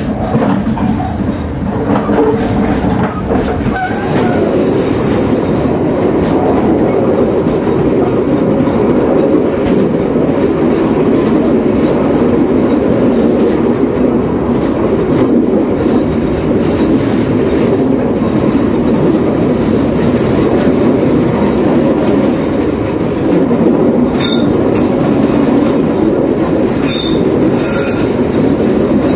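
Running noise of a passenger train's wheels on the rails, heard from aboard, a loud steady rumble. Brief high-pitched wheel squeals break in twice in the last few seconds.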